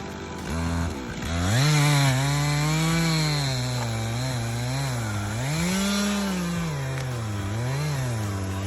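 Stihl MS 362 C two-stroke chainsaw cutting wood, its engine pitch repeatedly rising and falling.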